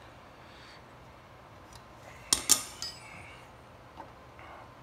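Side cutters snipping the excess end off a metal pin on a mini bike's front brake bracket: one sharp metallic snap about two and a half seconds in, followed by a couple of light clinks.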